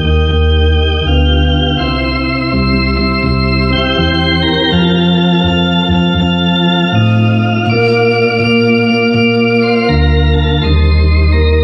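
Harmonia HS 200 Super electronic organ playing a hymn in four-part harmony: held chords over a bass line, the harmony changing about once a second.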